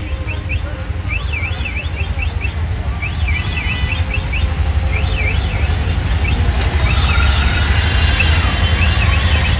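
Rumble of an auto-rickshaw ride through city traffic. Over it, an electronic siren sweeps up and down in quick repeated wails.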